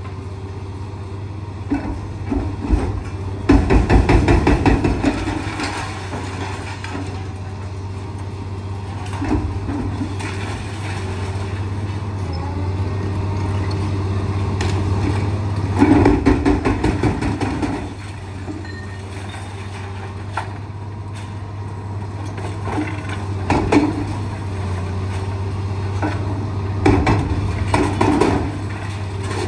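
Liebherr 954 crawler excavator's engine running steadily while its hydraulic breaker hammers in spells of rapid blows, the loudest about four seconds in, again about sixteen seconds in and near the end.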